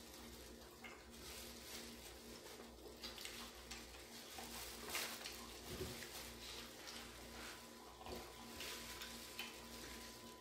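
Faint eating sounds: plastic gloves crinkling and scattered light clicks as boiled pig's trotters are torn apart by hand, over a faint steady hum.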